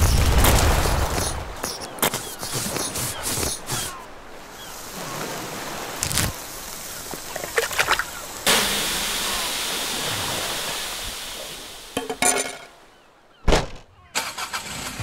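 Sound effects: a few scattered clicks and knocks, then water poured onto a hot charcoal barbecue, hissing steadily for about three seconds and fading out. Near the end comes a single sharp thud, then a car engine starting.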